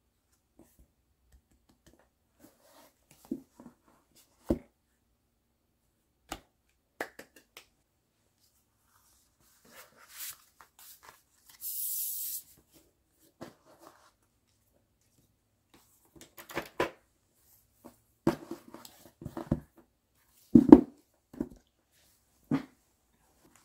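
Album paper inclusions, photocards and CD album packages handled on a tabletop: scattered light taps and clicks, a brief papery rustle about twelve seconds in, and a run of louder knocks near the end as the packages are set down.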